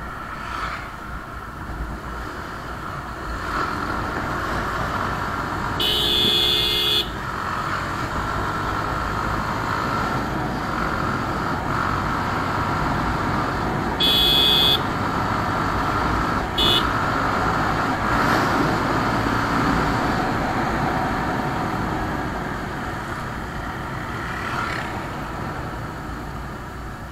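Bajaj Pulsar motorcycle riding at speed, engine and road noise running steadily, with a horn honking three times: a blast of about a second some six seconds in, a shorter one near the middle, and a quick toot just after.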